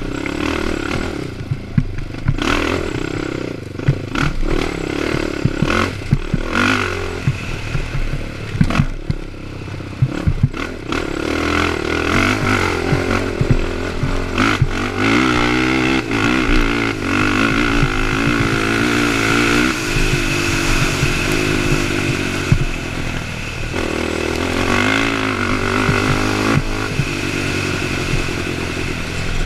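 Honda TRX450ER quad's single-cylinder four-stroke engine racing hard, revving up and down again and again, with frequent clattering knocks as the machine bounces over the rough trail. For several seconds around the middle the engine is held higher and steadier.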